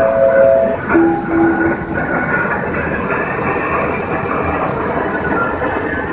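Steady rushing noise of a Boeing 777 flight deck in cruise: airflow and air-conditioning noise filling the cockpit. Two short steady tones sound in the first two seconds, the second lower.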